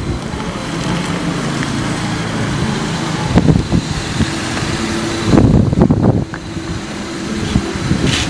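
Street traffic: motor vehicle engines running with road noise, swelling louder about three and a half and again about five and a half seconds in.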